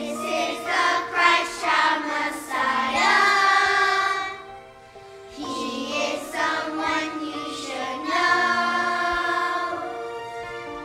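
Children's choir singing a slow Christmas worship song over instrumental accompaniment, two sung phrases with a brief break between them about halfway.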